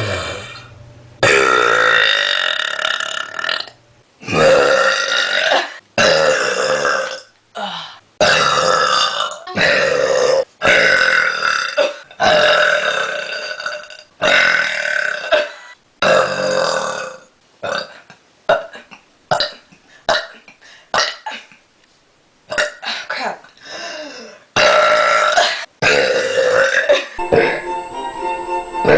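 A person burping over and over: about fifteen loud, drawn-out voiced belches in a row, some lasting a second or two, with short pauses between them.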